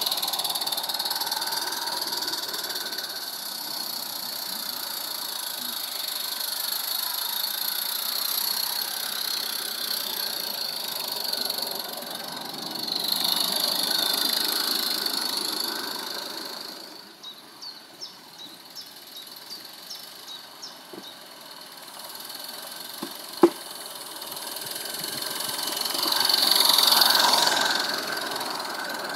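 Garden-scale model train running along its track with a steady rolling whir that swells twice as it passes close. In the middle the sound drops away to a run of light, evenly spaced clicks, about two or three a second, with one sharp click a couple of seconds later.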